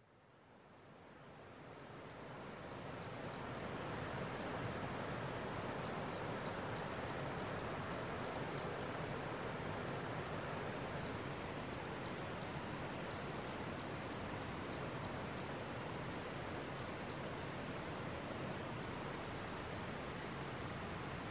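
Forest ambience fading in over the first few seconds: a steady rushing noise, over which a small songbird sings short runs of quick, high notes again and again.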